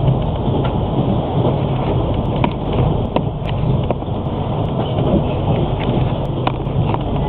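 Passenger train in motion heard from inside the carriage: a steady low rumble of wheels running on the rails, with scattered sharp clicks and rattles.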